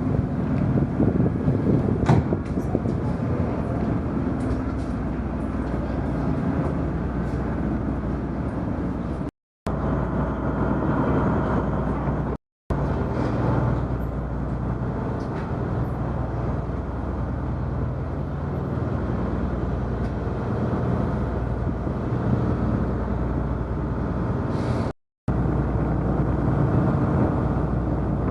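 The ferry Toba Maru's engines running: a steady low drone and rumble heard on board. It cuts to silence for a moment three times where clips are joined.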